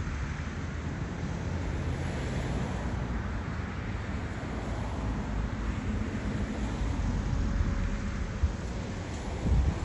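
Wind buffeting the microphone over a low, steady rumble of road traffic. A faint steady tone comes in about seven seconds in, and heavier gusts of wind noise arrive near the end.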